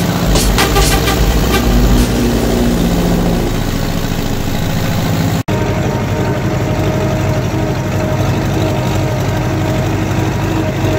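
Ursus C-4011 tractor's four-cylinder diesel engine running steadily, heard from the driver's seat. The sound cuts out for an instant about halfway, and the engine then runs on at an even pace.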